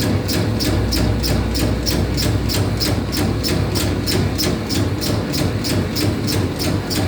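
Meatball-forming machine running: a motor hum under an even clacking about four times a second.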